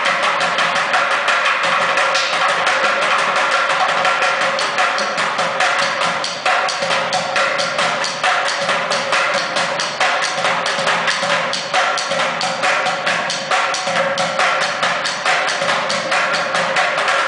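Two bucket drummers beating sticks on upturned plastic paint buckets and a large plastic barrel, playing a fast, continuous rhythm of sharp strokes.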